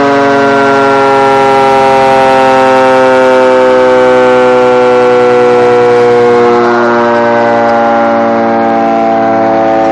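Surplus motor-driven civil-defence air raid siren sounding loudly, a chord of several steady tones that slide slowly down in pitch as the siren winds down.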